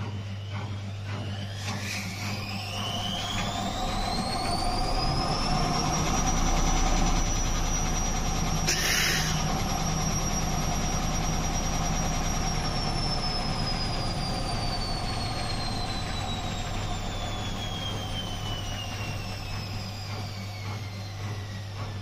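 Indesit front-loading washing machine on its spin: the motor whine rises for several seconds as the drum speeds up, holds at top speed, then slowly falls as the drum coasts down, over a steady low hum that cuts off near the end. A brief hiss sounds about nine seconds in.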